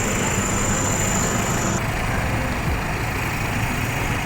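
Truck engine running steadily, with a thin high tone over it that cuts off about two seconds in.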